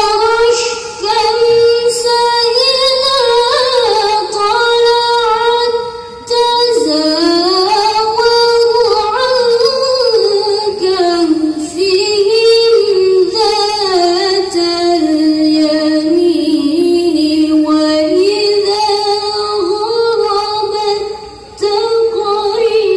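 A teenage girl reciting the Quran in melodic tilawah style: long, held, ornamented phrases that glide up and down in pitch, broken by short breath pauses.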